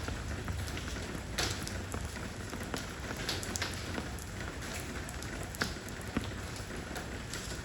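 Rain pouring down on stone stepping stones: a steady patter with scattered sharper drops splashing now and then.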